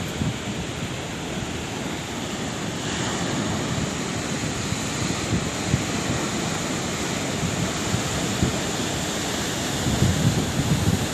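Sea waves washing onto the shore in a steady rush of surf, with wind buffeting the microphone in low rumbles that grow louder about ten seconds in.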